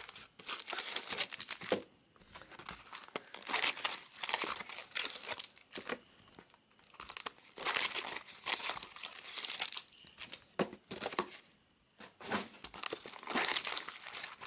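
Foil wrappers of Bowman Chrome trading-card packs being torn open and crinkled by hand, in repeated crackling bursts with short pauses between them.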